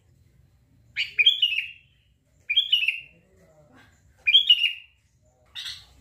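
Sooty-headed bulbul (kutilang) singing three short phrases, each a quick run of falling whistled notes, about a second and a half apart, followed by a short harsher call near the end.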